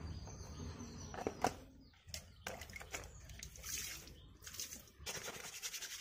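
Faint splashing and scattered clicks of a plastic air-conditioner filter being handled and rubbed in shallow water.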